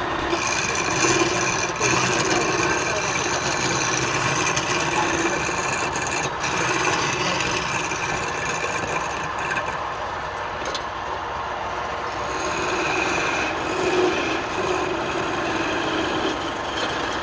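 Wood lathe running while the spinning wooden workpiece is worked: a continuous scraping, rasping hiss over a steady motor tone.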